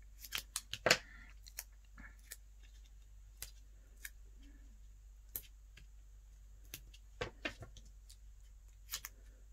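Scissors snipping small pieces off a roll of foam adhesive spacer tape. There is a quick cluster of snips near the start, scattered single clicks of handling, and another cluster of snips about seven seconds in.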